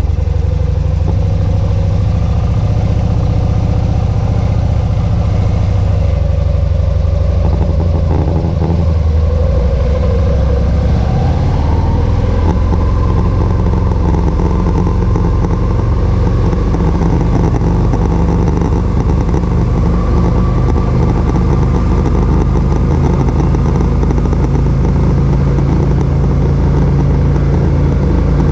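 Motorcycle engine idling just after being started, then revving up as the bike pulls away about ten seconds in and running steadily at low speed inside a concrete parking garage.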